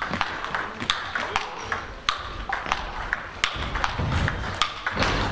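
Table tennis balls clicking off bats and tables in quick, irregular succession, from this rally and from neighbouring tables in the hall. A dull thump comes about four seconds in, as a player ends up on the floor.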